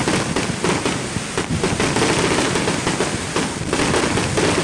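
Fireworks going off in a quick, irregular string of pops and crackles, several a second.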